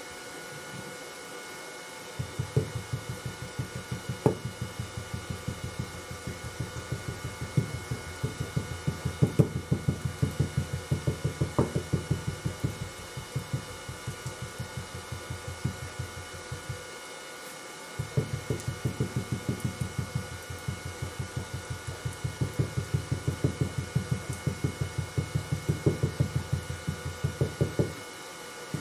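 Wooden hand rammer tamping green sand into a wooden moulding flask: a rapid, even run of dull thuds, a pause of about a second near the middle, then a second run.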